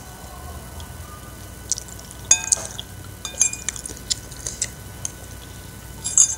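Metal spoon clinking and scraping against a ceramic soup bowl as broth is scooped up, a few clinks ringing briefly about two seconds in and again a second later, with small mouth sounds of eating.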